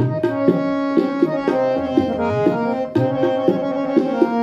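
Harmonium playing the shabad melody in the D# male scale, with tabla keeping a steady six-beat dadra taal underneath.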